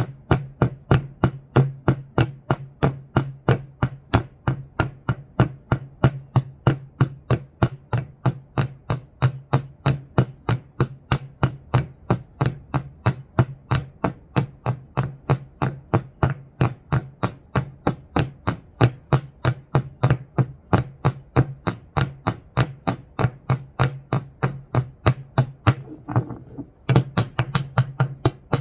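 Alga electronic device making an even, rapid clicking or tapping, about three to four a second, over a steady low hum, with a short break in the clicks near the end.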